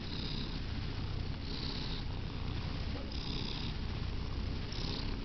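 Domestic cat purring right at the microphone: a steady low rumble that swells with each breath, about every second and a half.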